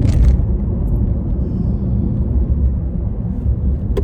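Steady low road rumble inside a moving car's cabin, with a brief hiss right at the start.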